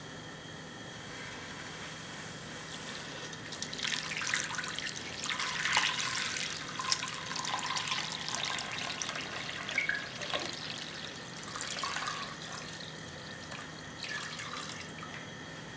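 Water poured from a jug into a large pot, splashing onto a piece of raw beef as the pot fills. It starts about four seconds in and dies away near the end.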